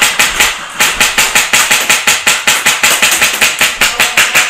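Airsoft gunfire at close range: a steady string of sharp, evenly spaced cracks, about six a second.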